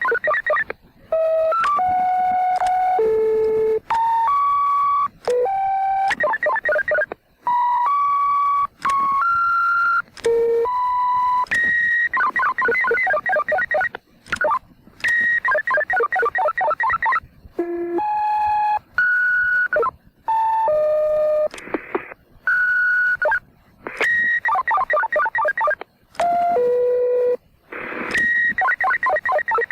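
Vintage radio-pager transmitter sending paging tone sequences. Runs of short steady beeps jump from pitch to pitch, each held about a third of a second to a second. They alternate with longer buzzy, warbling stretches of a second or more, with brief silent gaps between groups.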